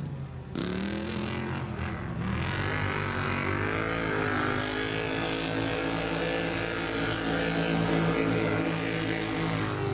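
UTV engines revving: the engine note climbs over the first couple of seconds, then holds at a steady high rev.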